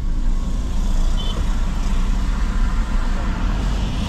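Steady low rumble of a 2023 Daihatsu Xenia's engine and road noise, heard inside the cabin as the car moves off. A short high beep sounds about a second in.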